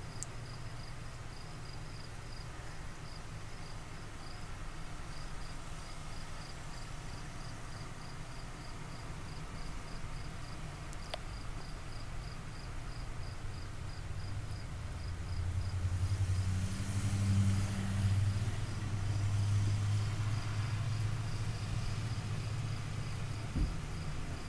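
Insects chirping steadily in an even high pulse, about three chirps a second, over a low background hum. From about fifteen seconds in, a low rumble swells and then fades.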